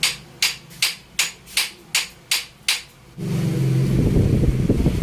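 Eight quick, sharp hammer taps on metal, about two and a half a second. About three seconds in they stop, and a loud, low, steady motor hum with a fast flutter starts.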